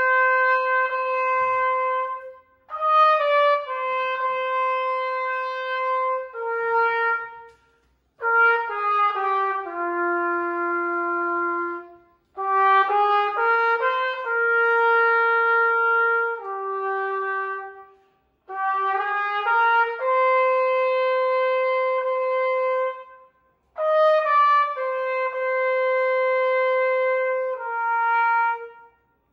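Silver-plated Yamaha YTR-4335G trumpet with a Weril 3 VW mouthpiece playing a slow hymn melody solo. Phrases of long held notes, with a short breath between phrases every four to six seconds.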